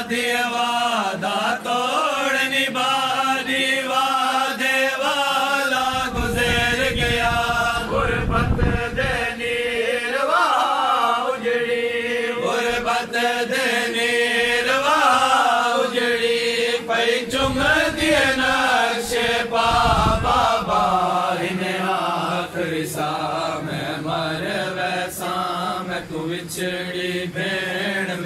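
Male chanting of a noha, a mourning lament for Imam Hussain, sung in long, wavering, drawn-out melodic lines.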